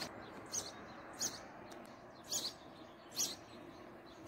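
A small bird chirping, short high calls repeated five or so times about a second apart, over the faint even hiss of light rain.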